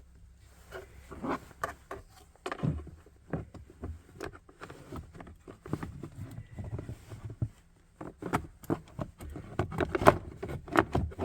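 Plastic lower steering column cover being handled and worked into place around the tilt lever: a run of irregular clicks, taps and knocks, coming thicker and faster in the last few seconds.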